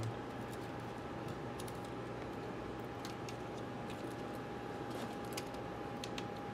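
Scattered light clicks and taps as small cable connectors are handled and pressed onto a MacBook Pro logic board, over a steady faint hum.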